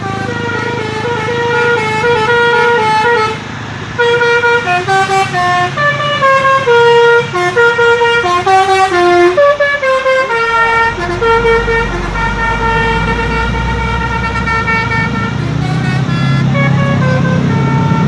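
Coach telolet horn playing a melody of held notes that jump from pitch to pitch, one after another. Under it a bus engine runs, and its low rumble grows louder in the second half as the coach moves past close by.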